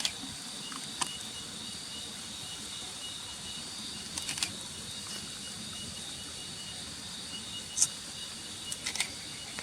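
Insects, crickets or cicadas, chirping steadily at a high pitch, with a few short sharp clicks now and then.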